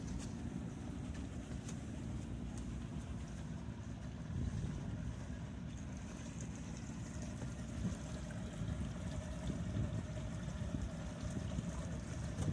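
Pontoon boat under way: a steady low rumble of its motor mixed with wind on the microphone, with a faint steady hum joining about halfway through.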